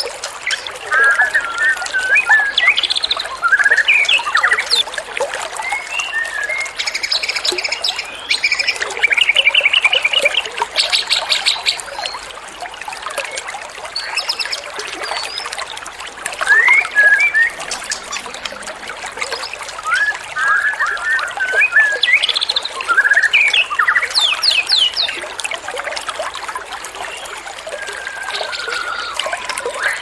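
Small songbirds singing in rapid chirps, fast trills and short whistles, over a steady trickle of running water.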